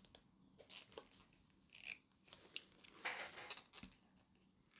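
Faint plastic clicks and rustles of hands working a 1/6 scale action figure, fitting its magnetic head pieces back into place. The loudest clicks come about three seconds in.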